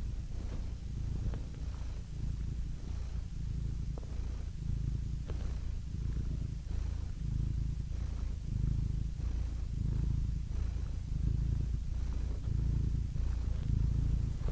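Domestic cat purring: a steady, low rumble that swells and eases in a slow rhythm.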